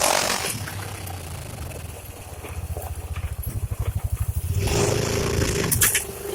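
Honda Pioneer 700-4 side-by-side's single-cylinder engine running at low revs, its separate firing pulses audible, then picking up speed about two-thirds of the way in with a couple of sharp knocks just after.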